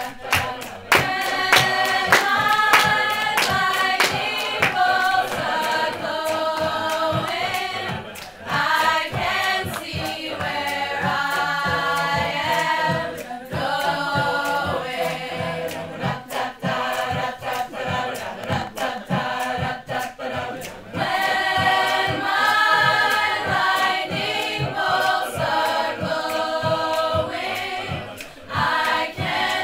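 Mixed-voice a cappella group singing in harmony, voices only, with many sharp percussive clicks keeping a beat.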